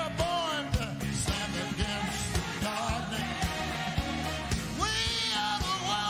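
A live band playing with a steady drum beat while a man sings into a microphone, sliding up into long held notes at the start and again about five seconds in.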